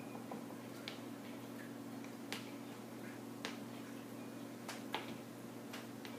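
A spatula clicking now and then against a plastic mixing cup while soap batter is stirred, about five sharp clicks spaced irregularly, over a steady low hum.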